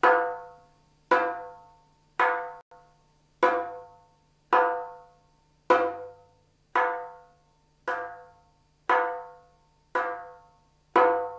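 Darbuka played with the "high" stroke, the first joints of the fingers striking the drum head just inside the rim. It gives the highest open note on the head, close to the rim-click "kik". The strokes are single, evenly spaced hits about once a second, each ringing with a clear pitch and dying away within a second.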